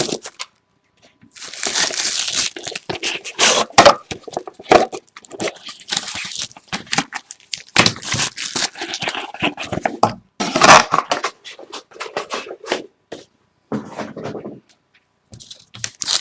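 Packaging crinkling and tearing as a sealed box of trading cards is opened and its wrapped pack ripped open, in irregular rustling bursts with short pauses.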